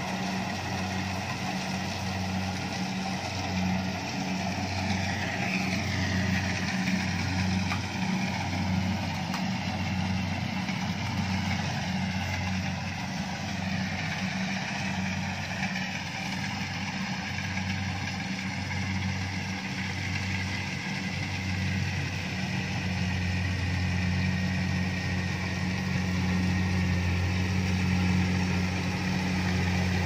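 Rice combine harvester's engine running steadily as it harvests, a low hum that pulses about once a second before evening out in the last third.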